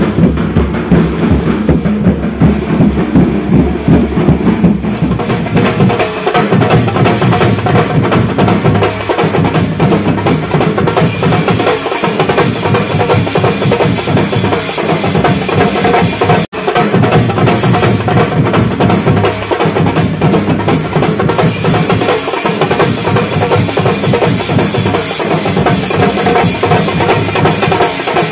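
Loud, dense drumming music with a steady beat, cut off for an instant about halfway through and then going on.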